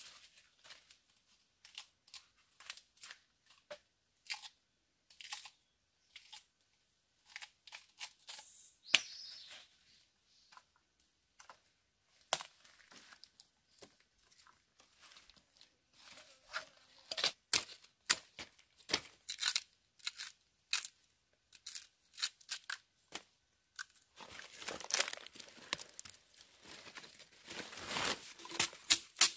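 Irregular sharp crackles and tearing sounds, thickening into a denser, louder rustle about five seconds before the end.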